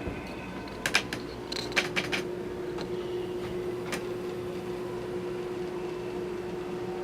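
A steady mechanical hum with one constant tone, with a handful of sharp clicks and creaks in the first few seconds.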